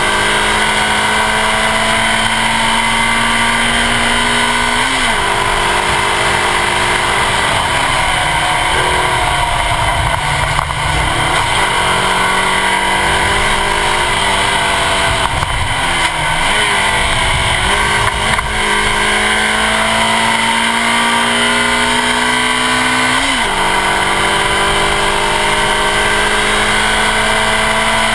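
Suzuki Swift Sport rally car's 1.6-litre four-cylinder engine under hard acceleration, heard from the front bumper with wind and tyre noise. The revs climb and drop with an upshift about five seconds in, fall and rise unevenly midway, then climb in one long pull to another upshift near the end.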